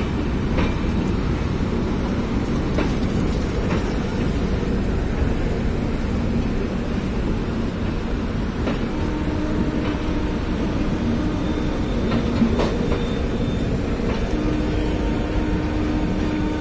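Express train's passenger coaches rolling past on departure: a steady rumble with scattered clicks of wheels over rail joints. A faint steady whine joins twice in the second half.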